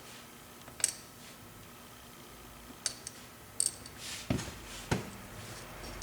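A handful of sharp, irregularly spaced metallic clicks and taps from small lock parts and tools being handled while a pin-tumbler lock cylinder is taken apart.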